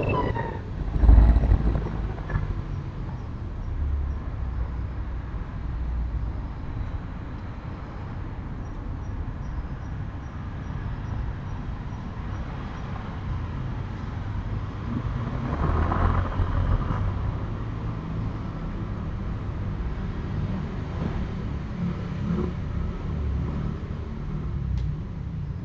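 Outdoor ambience with a steady low rumble like distant road traffic, a short heavy low thud about a second in, and a louder swell of noise around sixteen seconds in.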